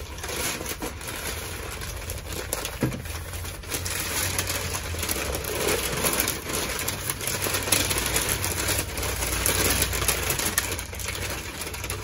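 Sheets of packing paper rustling and crinkling continuously as they are pulled open and pushed aside by hand to unwrap porcelain plates, over a steady low hum.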